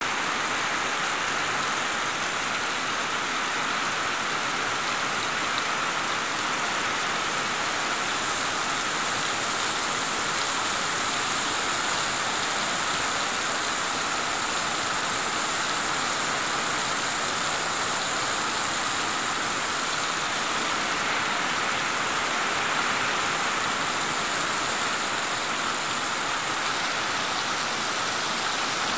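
Heavy rain falling steadily, splashing into standing water and onto grass and wet ground in an even hiss.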